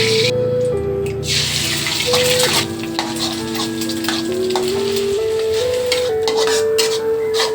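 Background music with a simple melody of held notes, over the sizzling of food frying in a pan. The sizzle stops for about a second near the start, then returns.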